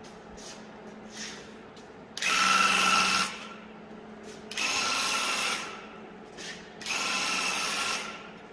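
Battery-powered Graco handheld airless paint sprayer running in three bursts of about a second each, one for each trigger pull on a spray pass. Each burst is a steady whine over a hiss.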